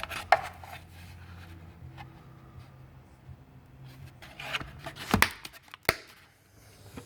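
Tools being handled: several sharp knocks and clicks as pieces of an axle bearing puller set are moved and set down, with a small cluster of knocks about five seconds in. A faint, steady low hum sits underneath.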